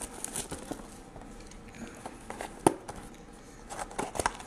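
A cardboard trading-card hobby box and its wrapping being handled and opened by hand: rustling and small clicks, with one sharp click about two-thirds of the way in and a few more near the end.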